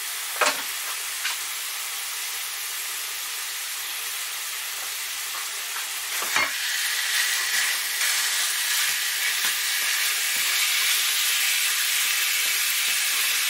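Beef mince sizzling in hot beef dripping in a frying pan, with a silicone spatula clicking and scraping against the pan as the block is broken up. The sizzle grows louder about halfway through, once the meat is spread across the pan.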